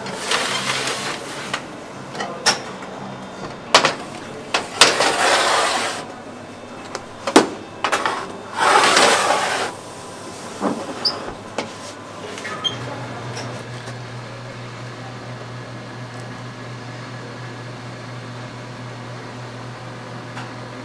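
Metal baking trays scraping as they slide onto the deck of a commercial oven, in three long scrapes with sharp metallic clanks between them. From about thirteen seconds in, a steady low hum takes over.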